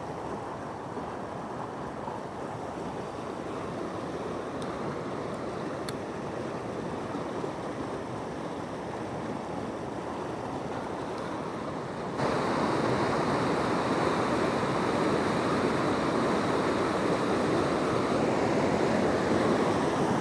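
Fast-flowing river current rushing and churning over rapids, a steady noise of water that turns abruptly louder a little past halfway.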